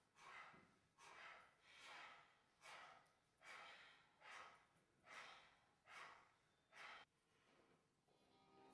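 Faint, rhythmic heavy breathing by stage performers: breathy, unvoiced in-and-out breaths about one a second. It stops about seven seconds in, and music starts to come in at the very end.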